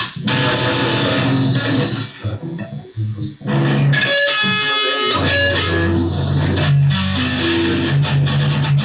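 Guitar music with a bass line, briefly dropping out twice a few seconds in.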